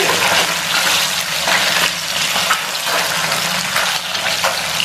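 Singi (stinging catfish) pieces shallow-frying in hot oil in a wok: a steady sizzling hiss with scattered crackles and pops of spitting oil.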